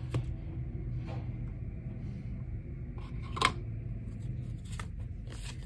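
Hands handling a small cardboard box and a paper insert, with faint rustles and light clicks and one sharp click about three and a half seconds in, over a low steady hum.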